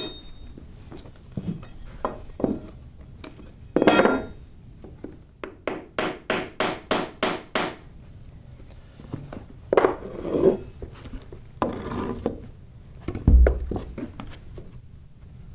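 Hammer taps on a flooring pull bar and wooden block, knocking an OSB-topped subfloor panel's tongue and groove tight against the wall: a few separate knocks, then a quick run of about eight taps, roughly four a second. Later come scraping as panels are handled and one heavy low thump near the end.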